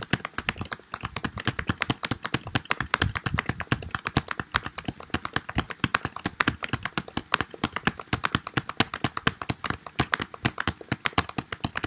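Rapid, continuous typing on a computer keyboard, a dense run of keystroke clicks as random gibberish is typed.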